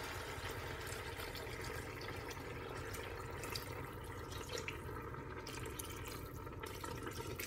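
Cold water poured steadily from a plastic jug into a steel pot, splashing onto chicken pieces and filling the pot to cover them.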